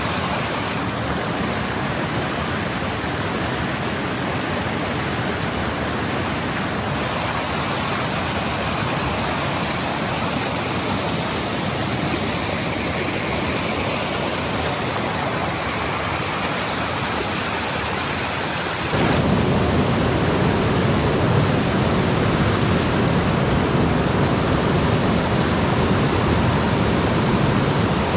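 Small rocky creek rushing over stones, a steady loud water noise. About two-thirds of the way through it jumps louder and deeper, as if from nearer the riffle.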